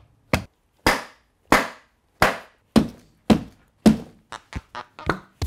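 A wine bottle held in a canvas sneaker is banged repeatedly against a wall and a wooden barrel to work the cork out. About a dozen hard knocks come roughly two a second, then lighter, quicker taps near the end.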